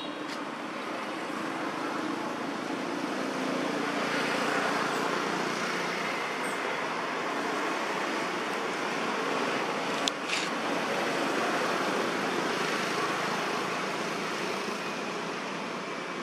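Road traffic noise from a vehicle passing, swelling over several seconds and then fading, with a sharp click about ten seconds in.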